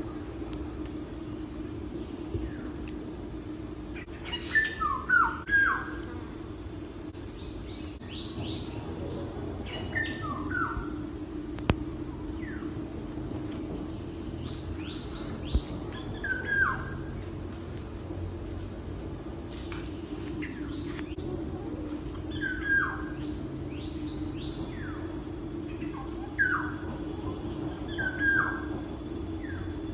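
Birds singing short phrases of quick falling whistled notes, repeated every few seconds, over a steady high-pitched hum.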